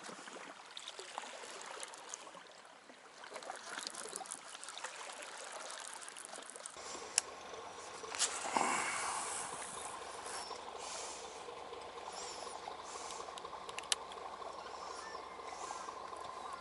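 Faint lapping of lake water against a stone embankment, with a few sharp clicks of tackle handling. A faint steady hum starts about halfway through.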